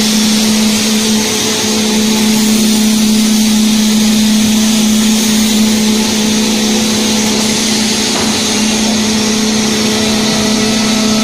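CNC router machinery running: a steady hum with an even hiss over it.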